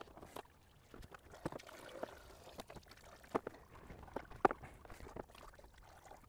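Irregular light clicks and knocks of hands and parts being handled in a car's engine bay during a teardown, with two sharper knocks a little past the middle.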